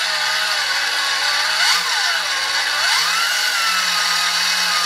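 Electric drill spinning a Fisher & Paykel washing-machine motor wired as a generator. The drill's motor whine changes pitch with speed: it rises sharply and falls back just before two seconds in, climbs again about three seconds in, then slowly sags.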